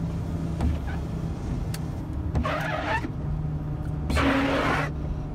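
Car road noise: a steady low rumble, with two short rushing swells about two and a half and four seconds in.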